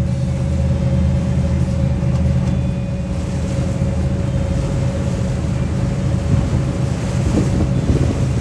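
Passenger ferry's engine running with a steady low drone and a constant hum, with wind buffeting the microphone.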